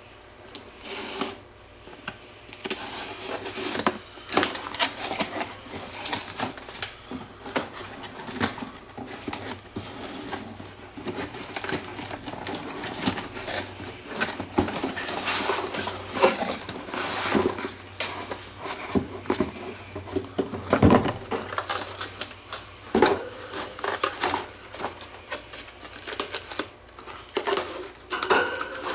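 A cardboard shipping box being opened by hand: packing tape peeled off, flaps folded back and cardboard packing handled, in irregular crackles and taps, with one louder knock about two-thirds of the way through.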